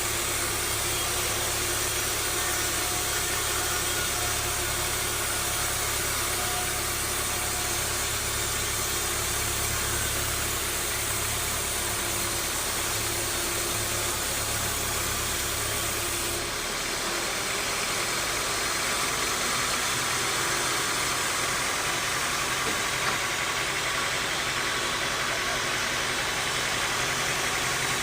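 Bandsaw sawmill machinery running steadily, a constant motor hum with a wide hiss over it; the low hum drops away about two-thirds of the way through.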